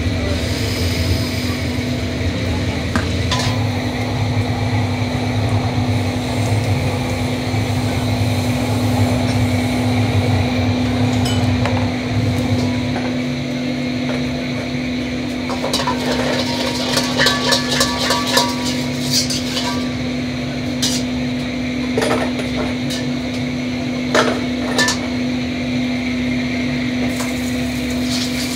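Busy restaurant kitchen at the wok station: the steady hum of lit gas wok burners and ventilation, a low rumble that fades about twelve seconds in, then metal ladles and bowls clinking and knocking against pots and woks through the second half.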